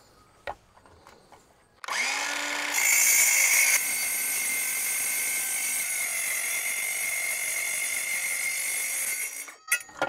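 DeWalt DCS373 cordless metal-cutting circular saw starting up about two seconds in and cutting through a refrigerator's sheet-metal side with a steady high whine, loudest for a moment just after it starts, then stopping shortly before the end.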